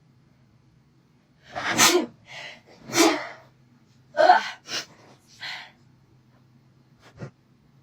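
A person sneezing several times in quick succession, with sharp breaths in between: about six bursts over four seconds, starting about a second and a half in. The sneezes are set off by a Covid-test nasal swab in the nose.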